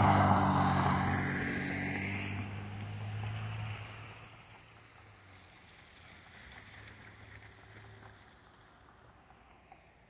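A vehicle driving past on a wet, slushy road: tyre hiss with a low engine hum that fade steadily as it moves away over the first several seconds, leaving only faint street noise.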